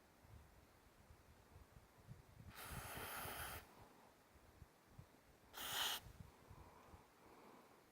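Aerosol can of adhesive hinge lubricant spraying into a car door lock in two hisses: one about a second long, then a shorter, louder one a few seconds later.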